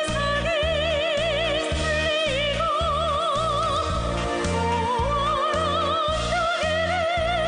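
Music: a sustained melody with wide, even vibrato over a steady pulsing bass beat.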